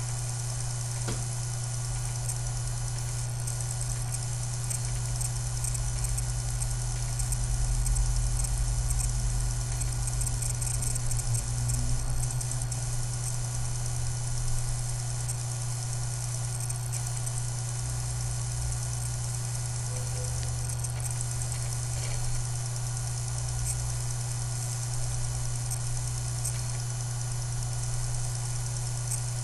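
Steady electronic whine coming from the underside of a Dell M65 notebook, with a constant low hum beneath it and a few faint clicks. This is the whine fault the owner reports on this laptop.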